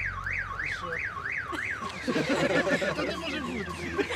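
A wailing electronic alarm tone sweeps up and down about three times a second and stops about two seconds in. Crowd voices murmur after it.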